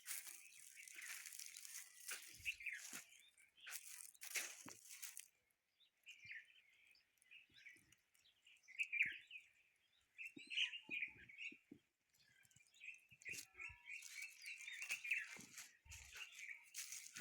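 Faint chirping of small birds in busy runs of twittering, with a few short bursts of rustling noise near the start, about four seconds in and near the end.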